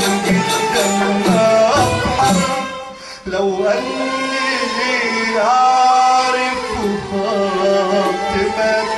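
Live Arabic song: a male soloist singing long, ornamented held lines with vibrato over electronic organ accompaniment, breaking off briefly about three seconds in.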